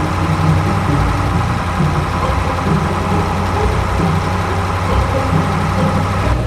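A small motor running steadily under load, with a constant low rumble.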